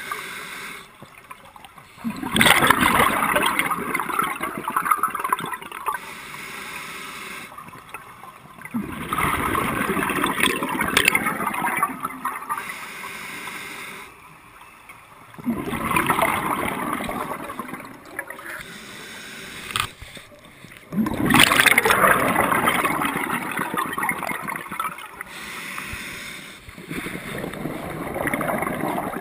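Scuba diver's regulator exhaling, heard through an underwater camera housing: a burst of rushing, gurgling bubbles lasting a few seconds, five times at a steady breathing rhythm, with quieter breaths between.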